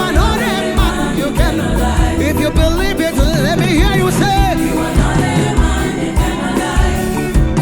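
Gospel song with singing, choir voices and a band keeping a steady beat.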